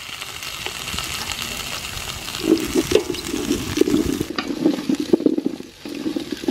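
Chunks of green papaya, carrot and potato sizzling in hot soybean oil and garlic in a large stainless steel pot. From about two and a half seconds in, a wooden spoon stirs them, scraping and knocking against the pot.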